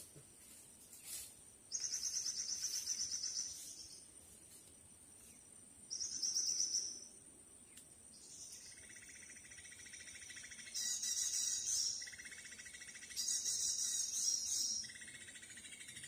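Birds calling in a series of fast, buzzy trills, each burst lasting one to two seconds, alternating between higher and lower-pitched bursts, over a thin, steady, high-pitched insect whine.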